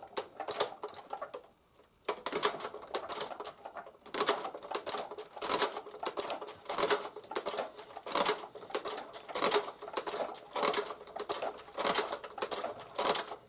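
Tippmann Boss hand-crank leather sewing machine stitching leather, a mechanical clack with each stitch about every two-thirds of a second, pausing briefly about two seconds in. The machine is binding up and missing stitches, which the owner hopes is only corrosion and dirt inside.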